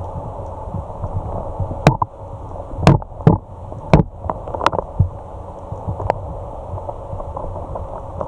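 Muffled underwater noise heard through an action camera's waterproof housing, with five sharp clicks or knocks spaced about a second apart.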